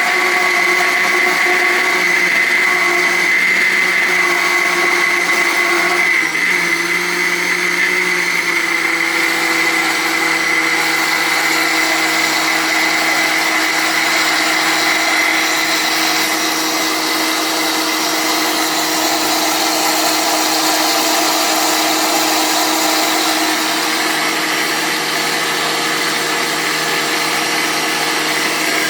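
Cadence Evolution 800 W blender running continuously, blending pizza batter. Its motor hum drops slightly in pitch about seven seconds in, then runs steadily.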